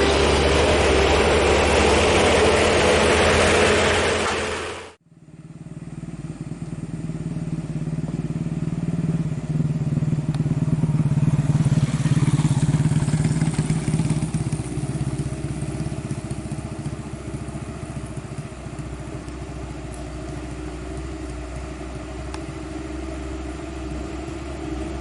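Heavy truck engine running loudly on an uphill road. The sound fades out to silence about five seconds in and fades back in, then grows louder for several seconds and slowly eases off.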